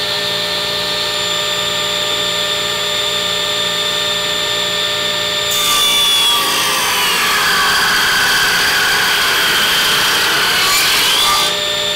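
Delta 36-725 table saw running free with a steady whine. About five and a half seconds in, a 4x4 fed hard into its thin-kerf blade starts to be cut: the pitch drops as the motor labors and slows under the load without stalling. The pitch rises back near the end as the cut finishes.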